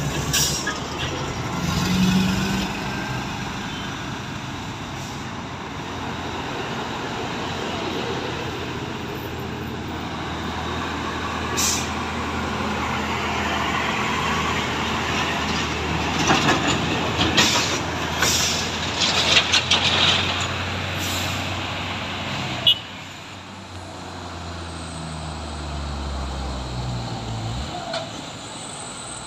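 Heavy diesel trucks climbing slowly up a steep grade, with a steady low engine drone as a flatbed truck passes close by. Short hisses and clicks come through the middle part, and a single sharp knock sounds about two-thirds of the way through.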